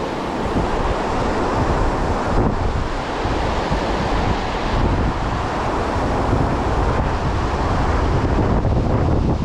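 Steady rush of flowing creek water, with wind buffeting the microphone as an uneven low rumble.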